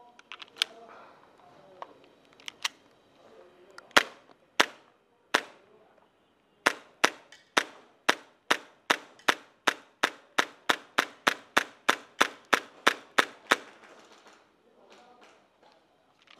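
KSC M9A1 gas blowback airsoft pistol, with a few clicks near the start as a magazine is seated and the slide goes forward. It fires three spaced shots, then a quick string of about two dozen shots at roughly three a second. The slide ends locked back on an empty magazine.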